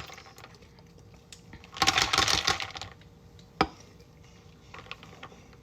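Kitchen handling sounds: a rush of noise lasting about a second, then a sharp clink, with a few light clicks over a faint steady hum.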